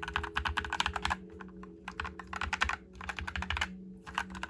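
Keychron C1 Pro 8K tenkeyless mechanical keyboard being typed on quickly, in dense runs of keystroke clicks broken by short pauses, as a sound test of its sound-dampened build.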